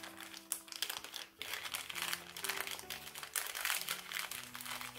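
Plastic packaging crinkling and crackling irregularly as it is unwrapped by hand.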